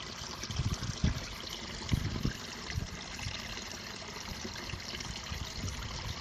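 Steady rushing background noise, with a few low knocks in the first two and a half seconds as something is handled.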